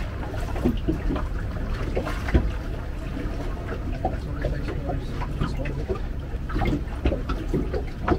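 Water and wind around a boat, a steady low rumble, with scattered small knocks and clicks throughout.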